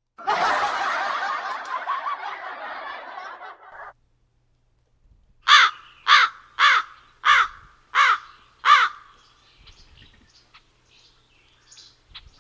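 Canned sound effects played from a live-streaming sound card. First comes a dense, noisy clip about four seconds long that cuts off suddenly. After a short gap come six evenly spaced crow caws, the 'crows flying over' effect used to mark an awkward moment on a stream.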